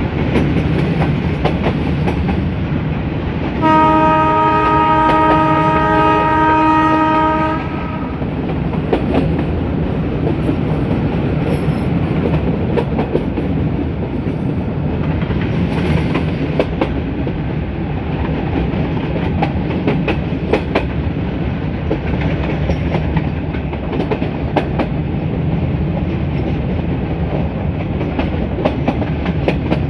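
A YDM4 diesel locomotive's horn sounds one long blast of about four seconds, starting a few seconds in, over the steady rumble and clickety-clack of a metre gauge train running on jointed track.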